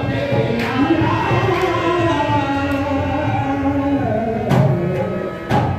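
Devotional singing: a voice holds one long wavering note over a steady hand-drum beat, with a couple of sharper drum strokes near the end.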